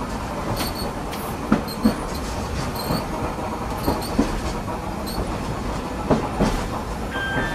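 Hiroshima Electric Railway 570-type streetcar No. 582 running along street track: a low steady rumble with paired clacks of its wheels over rail joints, three pairs about two seconds apart. A steady high tone comes in near the end.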